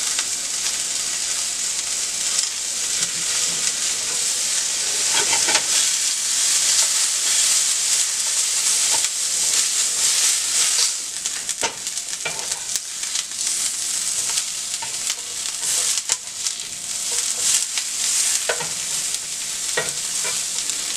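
Vidalia onion rings sizzling in butter in a nonstick frying pan, with a steady hiss. A black nylon slotted spatula scrapes and turns the onions, making scattered short clicks against the pan.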